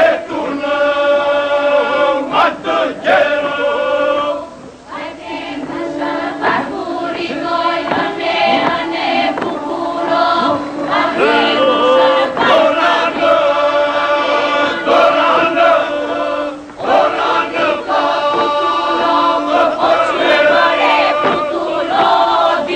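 Group of voices singing an Albanian polyphonic folk song from Gjirokastër: long held notes in several parts over a steady drone, with two short breaks between phrases.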